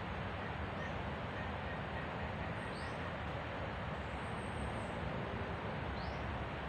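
Steady forest background noise with a low rumble, and a few faint, short high chirps from small birds scattered through it.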